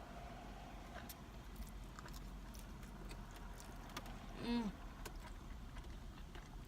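Quiet eating sounds: scattered small clicks of fork and food, with a brief hummed "mm" from a person about four and a half seconds in.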